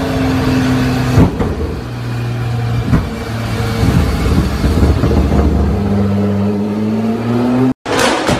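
Nissan GT-R twin-turbo V6 revving steadily while its exhaust shoots flames. A loud bang comes about a second in, and another about three seconds in. The engine note drops after the first bang and climbs again near the end. The sound then cuts off abruptly, and rapid exhaust popping from another car follows in the last half-second.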